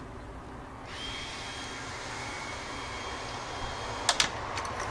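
Bar and chain oil being poured from a bottle into a chainsaw's oil tank: a steady pouring hiss starting about a second in, followed near the end by two sharp clicks.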